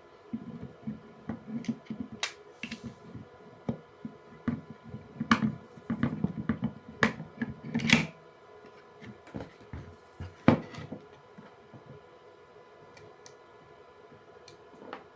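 Hands working on an opened contactor: irregular sharp clicks and knocks of small metal parts, with rubbing and handling noise, over a faint steady hum. The sounds thin out in the last few seconds.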